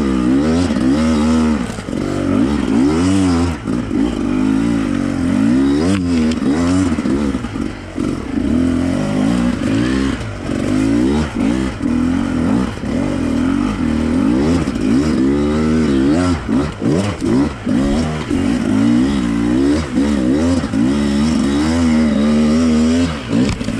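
Enduro motorcycle engine being ridden hard, revving up and falling back again and again every second or two as the throttle is worked.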